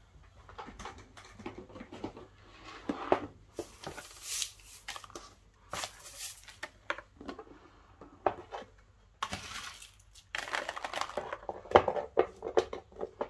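Shredded paper filler rustling and crinkling as hands scatter it into a paper-lined cardboard box, with small sharp clicks and taps from little beads dropped in among it. The handling is irregular and busiest near the end.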